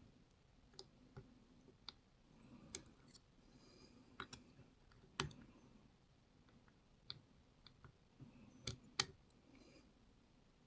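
Faint, irregular small metallic clicks of lock picks working inside a Lockwood MT5 lock cylinder, with two sharper clicks about five and nine seconds in.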